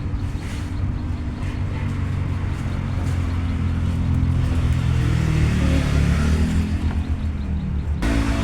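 Isuzu Mu-X turbodiesel engine running, revved up about halfway through and then settling, as it is checked for a loud turbo noise whose cause has not been found.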